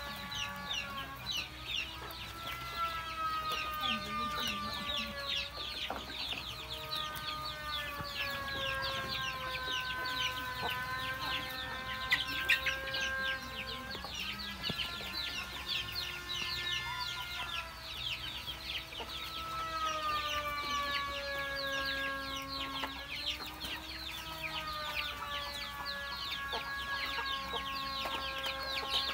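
Flock of young chickens calling without pause while they feed: many short, high, falling peeps overlap with clucks. A steady droning tone that slowly shifts in pitch runs underneath.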